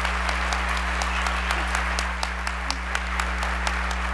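Audience applauding: many hands clapping in a steady, dense patter, over a steady low electrical hum.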